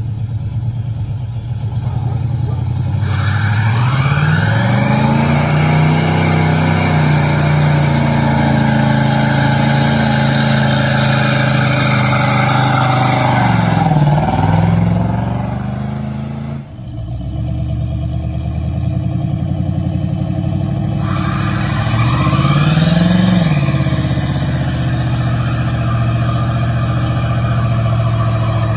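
AMC Matador's 360 V8 revving up about three seconds in and held at high revs for roughly ten seconds, as in a burnout, then dropping back. After a short break the engine idles steadily, with one quick blip of the throttle about two-thirds of the way through.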